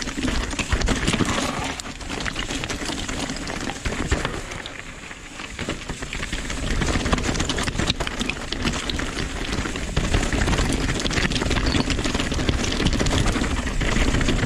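Nukeproof Dissent 290RS downhill mountain bike descending a rocky trail: tyres rolling over loose rock and shale and the bike rattling, with many small knocks over a steady rumble. It eases off briefly about four to six seconds in.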